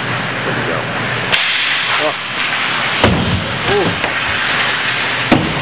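Ice hockey play: four sharp cracks of sticks hitting the puck and ice over a steady rink rumble, with a couple of short shouts from the players.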